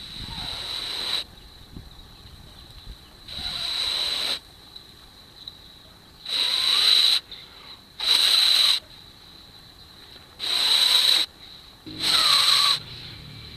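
Someone blowing on a smouldering tinder bundle to coax the ember into flame: six hissing breaths, each about a second long, with short pauses between them.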